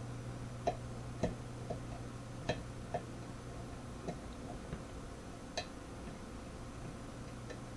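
Small, irregular metallic clicks from a lock pick raking and setting the serrated pins of a pin-tumbler challenge lock under tension, about nine over several seconds, over a steady low hum.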